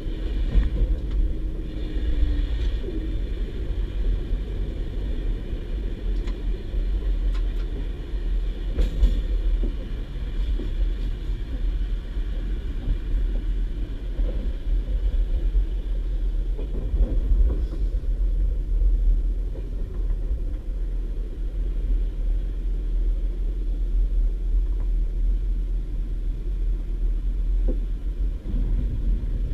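Steady low rumble heard inside the passenger cabin of a moving DB Class 612 diesel multiple unit: the underfloor diesel engines and the wheels running on the track. A humming tone fades out about two seconds in, and a few faint clicks come around nine seconds in.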